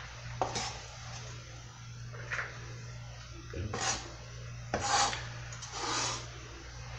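Chef's knife blade scraping chopped onion across a plastic cutting board and into a plastic bowl, in about five separate short strokes. The longest strokes come about four to six seconds in. A steady low hum runs underneath.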